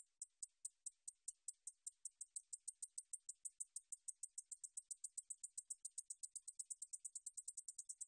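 Japanese bush katydid (Ducetia japonica) singing: a train of short, high-pitched ticks that speeds up steadily, from about four a second at first to nearly twice that by the end.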